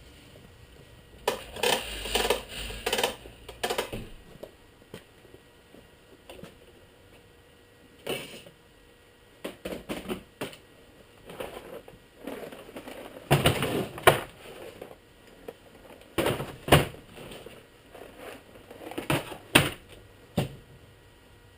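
Irregular clatter and clicking of hand tools and metal pieces being handled, in bunches of a second or two with short pauses between.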